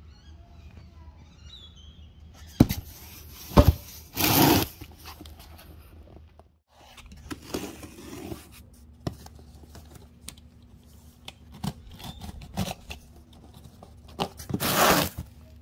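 A utility knife slicing packing tape on a cardboard box, with scattered scrapes of the blade and a louder tearing slice near the end. About three seconds in there are two sharp knocks and a short burst of rustling as the cardboard box is handled.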